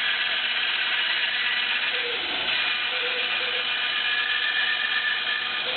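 Electric saw running steadily as it cuts a circle through a board that is turned on a pivot jig.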